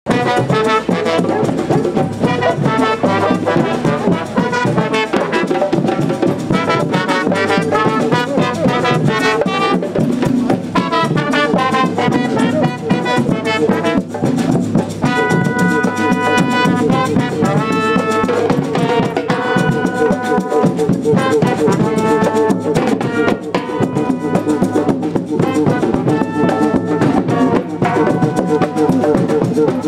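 A street band of trombones and trumpets plays a tune over beating drums.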